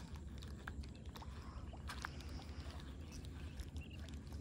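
Faint outdoor ambience: a low rumble of wind and rippling water, with a few light clicks.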